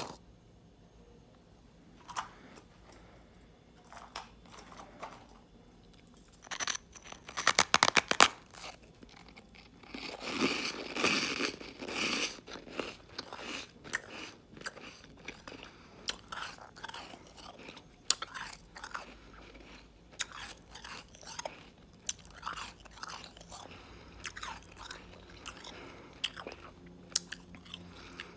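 Shaved ice made from frozen sparkling water being bitten and chewed, in irregular crunches. A quick run of sharp crackles comes about seven to eight seconds in, and the loudest, densest crunching follows a couple of seconds later.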